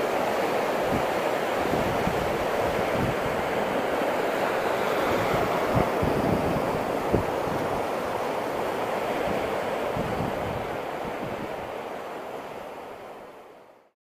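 Sea surf breaking and washing up the shore in a steady rush, with short low thumps of wind buffeting the microphone. It fades out over the last few seconds.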